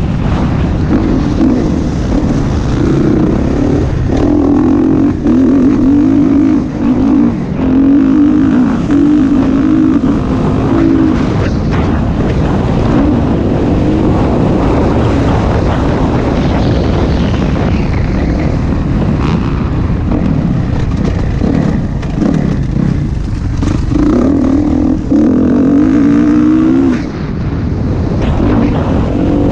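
Dirt bike engine running hard at speed, heard from on the bike, its note rising and falling with the throttle.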